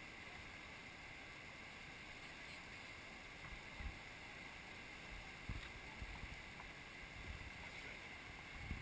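Steady rush of a river running over rapids, with a few low thumps of wind buffeting the microphone in the second half.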